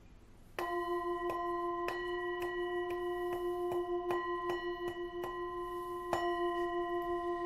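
A metal singing bowl struck over and over, about twice a second, starting just under a second in. Each strike gives a short clink over a ringing tone that holds steady with a slow pulsing wobble.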